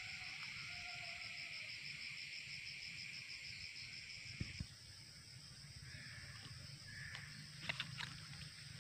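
Insects calling in a tropical garden: a steady high drone that cuts off about four and a half seconds in, over a higher, fast-pulsing insect call that keeps going. A few faint clicks come near the middle and towards the end.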